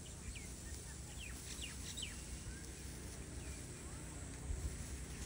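Small birds chirping: a handful of short, quick, falling chirps in the first half, over a low steady background rumble in an open field.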